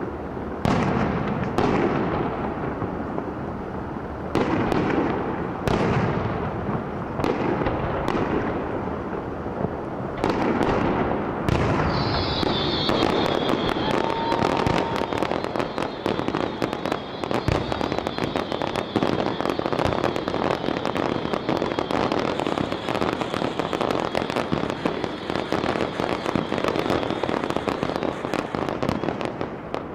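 Aerial fireworks going off: separate bursts about every second or so for the first twelve seconds, then a dense crackling barrage with a steady high whistle over it.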